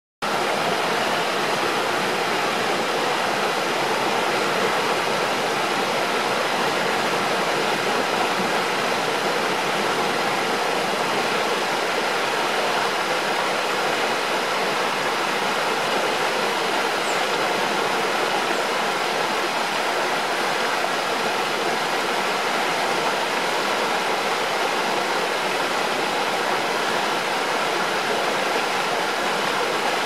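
Shallow rocky stream running and splashing over boulders in small cascades: a steady, even rush of water with no change in level.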